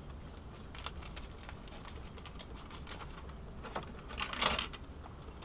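Foil soup sachet rustling and crinkling in the hands, with faint small ticks and a louder crinkle about four seconds in.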